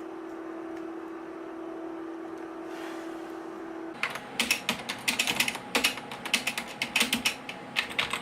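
A steady hum for about four seconds stops suddenly. Then come rapid, irregular key clicks: typing on a 2002-era Apple keyboard to test whether the keys work after it was cleaned and put back together.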